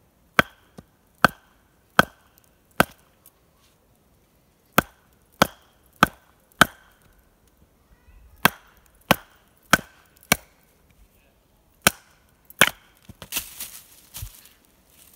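A small hatchet chopping into a piece of wood, thought to be beech, to split it for a spoon blank. The sharp strikes come in runs of three or four, about one every 0.7 s, with short pauses between, and a rougher crackling noise follows near the end.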